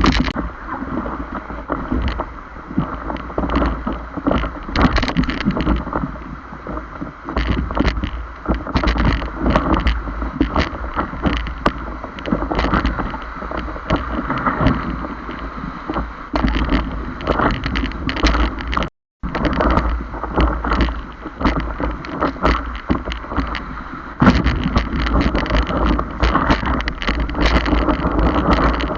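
Water splashing and rushing around a stand-up paddleboard being paddled on a river, with many sharp splashes and wind buffeting the microphone. The sound cuts out for a moment about two-thirds of the way through.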